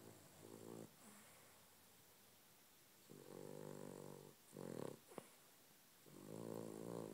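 Pet dog snoring in its sleep. A short snore comes about half a second in, then longer, buzzing snores at about three and six seconds in, with a couple of brief breathy sounds between them.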